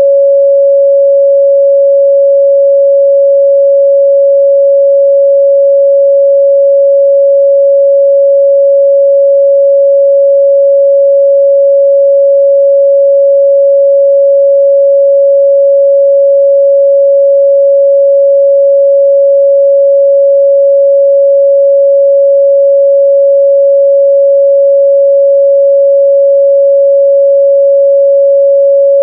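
A pure 557 Hz sine-wave test tone, held steady and unchanging at a constant loud level.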